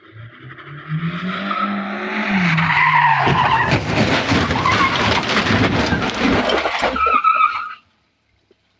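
A car's engine revving up, then a long, loud skid and crash with dense crunching as it slams into a parked sedan and shoves it along the driveway; the sound cuts off suddenly near the end.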